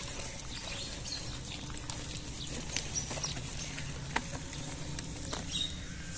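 Footsteps on concrete paving, heard as scattered short clicks, with a few brief bird chirps over a steady low hum.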